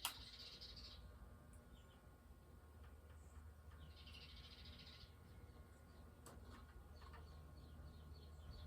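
Faint, steady low hum of an antique Diehl ceiling fan running on a test spin, with one sharp click at the very start. Bird chirps sound in the background: a short spell at the start, another about four seconds in, and a quick run of short chirps near the end.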